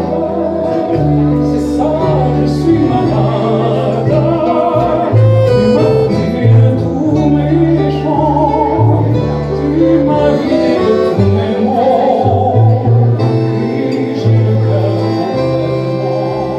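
Music: a melody line with vibrato, either sung or played, over a steady bass line that moves from note to note about once a second.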